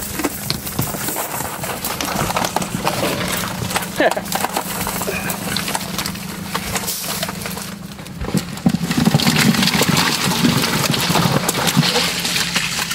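Freshly caught mullet flopping in the boat, a quick irregular knocking and slapping, over the steady low hum of an idling motor. About two-thirds through, a louder rushing noise joins in.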